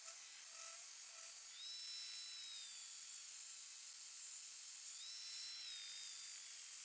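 Belt sander running against a freshly saw-cut lacquered molding, dressing the edge of the cut: a steady hissing rush with a high whine. The whine drops slightly in pitch about a second and a half in and again near five seconds.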